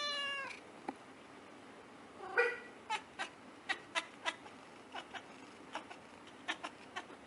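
A cat meowing, one call right at the start and another about two and a half seconds in, followed by a string of short, sharp ticks.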